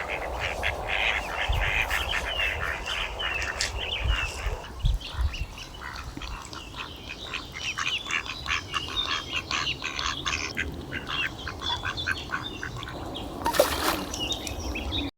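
A group of ducks quacking, with many short calls overlapping throughout, a brief burst of noise near the end, and the sound cutting off suddenly.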